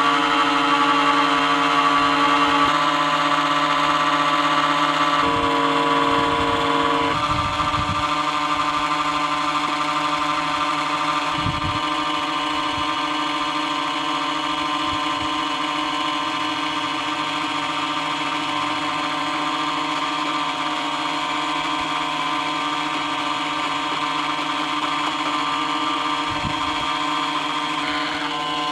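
Small refrigeration compressor and its cooling fan running steadily in a homemade rapid cooler, a layered humming drone whose pitch pattern shifts a few times in the first several seconds and then holds steady.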